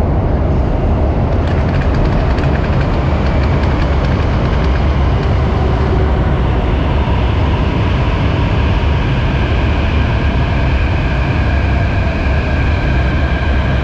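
Loud steady rumble of a moving vehicle, with faint whining tones that rise slowly in pitch through the second half.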